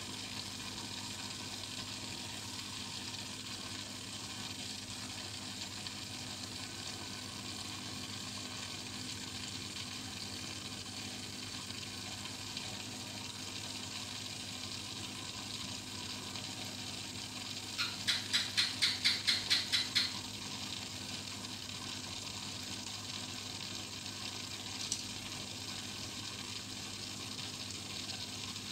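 Steady fizzing hiss of bubbles from an aquarium's air line and internal filter. About eighteen seconds in, a quick run of about ten sharp clicks over two seconds, and a few seconds later one more click.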